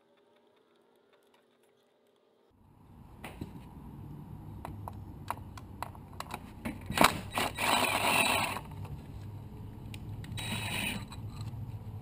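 Cordless drill-driver running in two short bursts, first for about a second and a half and then more briefly a couple of seconds later, backing out 10 mm bolts. Scattered clicks and knocks of tools against metal go on around it.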